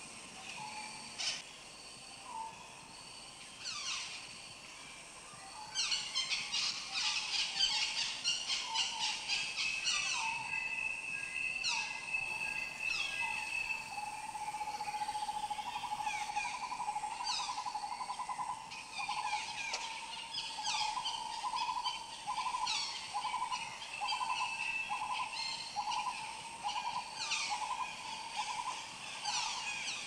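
Several birds singing and calling: many quick falling chirps, with a long, rapidly pulsing trill running through the second half. The chorus grows busier about six seconds in.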